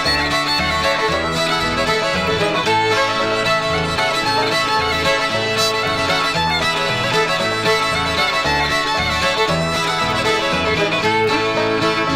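Old-time Ozark fiddle playing a fast breakdown tune, with a steady backing of alternating low notes underneath.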